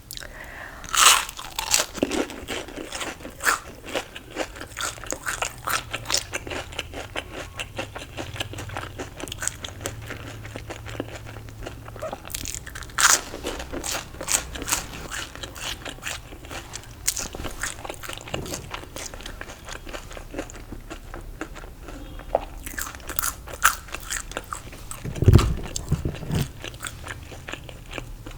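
Crunchy fried food being bitten and chewed: steady crisp chewing with sharp, louder crunching bites about a second in, around the middle and a few seconds before the end. A low thump comes shortly before the end.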